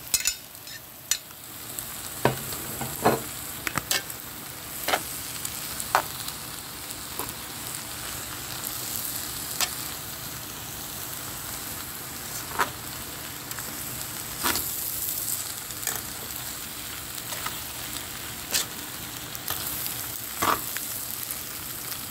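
Rice-stick noodles (pancit bihon) sizzling in a pan while metal tongs toss and stir them, a steady frying hiss with sharp clicks of the tongs against the pan every second or few.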